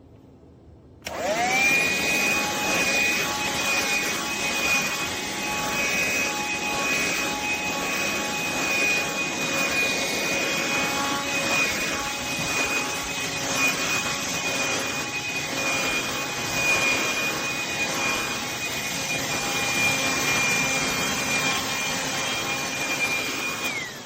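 Black+Decker Dustbuster cordless handheld vacuum switched on about a second in, its motor rising quickly to a steady high whine over the rush of air. It is switched off near the end and winds down.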